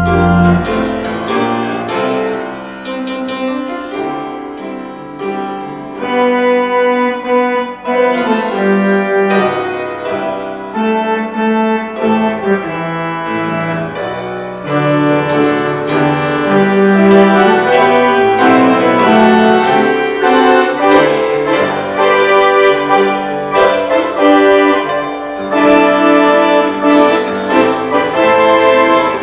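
Instrumental piano music, a melody over held chords with no singing.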